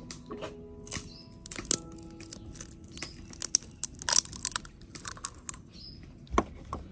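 Eggs being cracked and broken open by hand over a bowl of flour: a scatter of sharp shell cracks and crackles, with a dull thump near the end.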